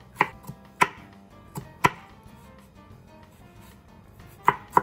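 Chef's knife chopping onion and garlic on a wooden cutting board: a few sharp knocks of the blade on the board in the first two seconds, a pause, then a quick run of chops near the end.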